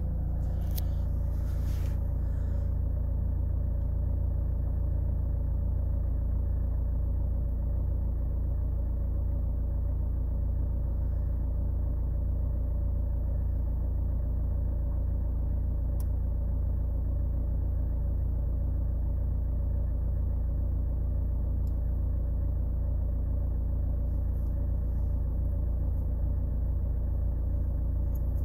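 Opel Insignia 2.0 engine idling steadily, with a low rumble that holds an even level throughout, just after an engine flush and a fill of fresh GM Dexos 2 oil; by the owner's decibel meter its noise is unchanged.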